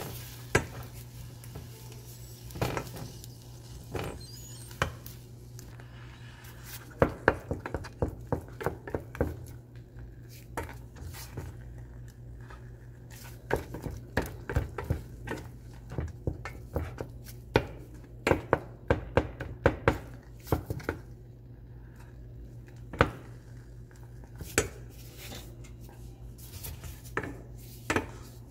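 Wooden spoon stirring a thick flour paste in a stainless steel saucepan, knocking and scraping against the pan in irregular clusters of sharp clicks. A steady low hum runs underneath.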